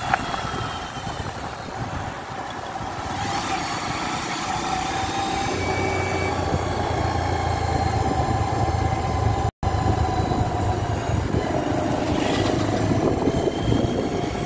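A vehicle's engine running steadily while on the move along the road, with road and wind noise. The sound drops out for an instant about ten seconds in.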